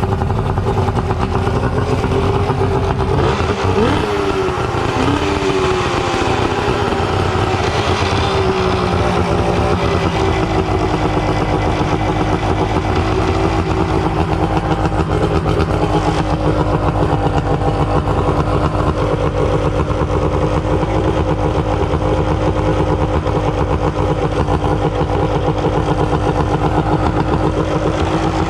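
Suzuki DT65 two-stroke outboard motor running just after starting, its revs rising and falling in the first few seconds, then settling to a steady fast idle. The owner puts the high revs down to the idle screw being set too high.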